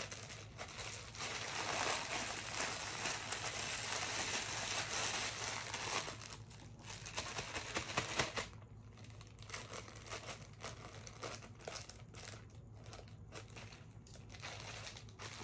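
A clear plastic packaging bag being crinkled and handled. It crinkles densely and without a break for about eight seconds, then settles into sparse, intermittent crackles.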